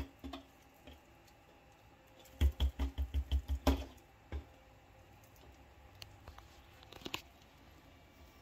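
Stuffed sausage links bumping on a tabletop as a link is spun around and around to twist it off: a quick run of about eight soft thumps, some six a second, followed later by light taps and rustles of handling.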